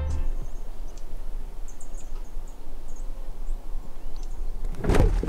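Outdoor ambience: a steady low rushing noise with a few faint, short, high bird chirps in the middle, and a louder burst of noise near the end.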